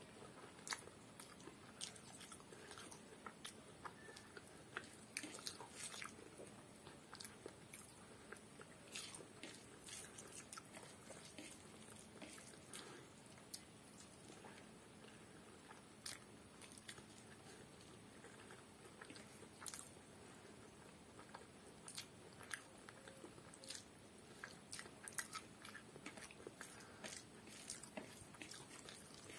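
Quiet, close-up chewing and mouth sounds of someone eating rice and curry by hand: soft, irregular wet smacks and clicks, several a second at times.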